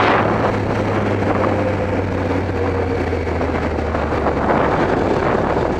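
Kawasaki ZX-12R motorcycle's inline-four engine idling steadily with a low, even hum.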